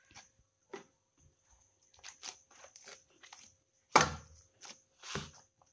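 A hand kneading soft flour dough on a plate: scattered squishing and scraping strokes, with two louder thumps about four and five seconds in.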